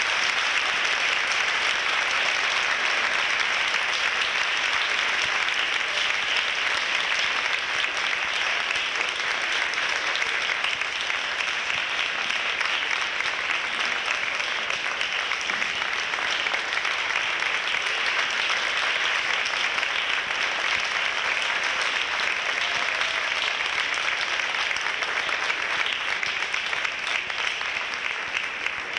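Audience applauding steadily for a long stretch, thinning a little near the end.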